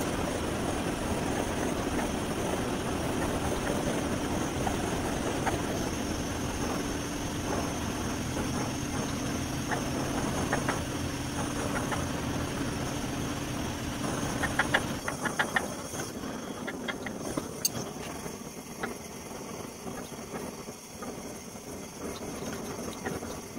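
A motor runs with a steady hum, then cuts off about fifteen seconds in; a handful of sharp clicks and taps follow.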